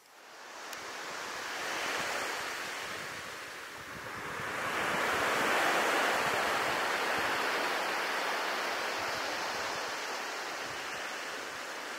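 Sea waves washing onto the beach: a first swell about two seconds in, then a bigger one a few seconds later that slowly eases off.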